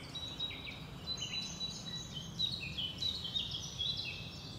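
Several birds chirping and singing, with many short calls and trills overlapping, over a steady low background rumble.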